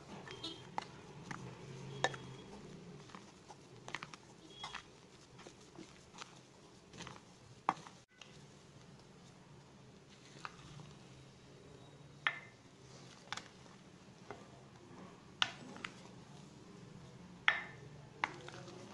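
A silicone spatula knocking and scraping against a glass mixing bowl while whipped egg whites are folded into sponge cake batter. It makes irregular clicks, a few with a short glassy ring, over a low steady hum.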